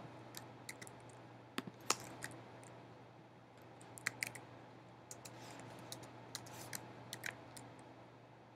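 Scattered keystrokes and clicks on a computer keyboard and mouse: about a dozen sharp taps spaced out with pauses between them, over a faint steady low hum.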